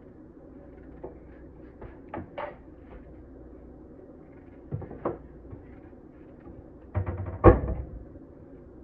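Soft clicks and scrapes of a knife peeling a chayote, then, about seven seconds in, a louder knock and clatter as the vegetable and knife meet the pan of cut vegetables.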